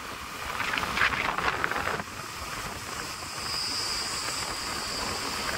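Wind rushing over the microphone of a moving vehicle, mixed with road noise. There is a rattly stretch about a second in, and a faint high steady tone in the second half.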